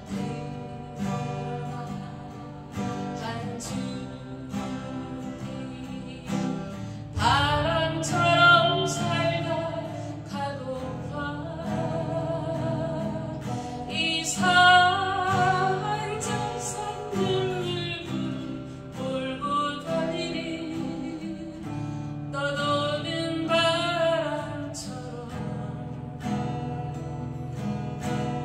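A woman singing in Korean to her own strummed acoustic guitar; her voice comes in strongly about seven seconds in, with a slow vibrato on the held notes.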